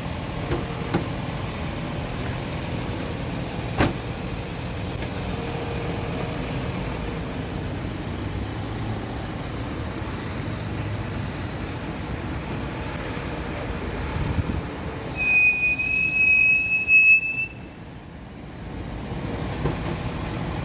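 Toyota RAV4's front brake pads squealing under light braking: a single high, steady squeal lasting about two seconds, some fifteen seconds in, over the car's steady running noise. The squeal is the fault being shown, on freshly fitted pads that have not stopped squeaking.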